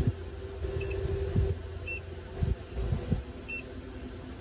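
Three short, faint high-pitched electronic beeps a second or so apart over a steady low hum, with a few dull low knocks about two and a half to three seconds in.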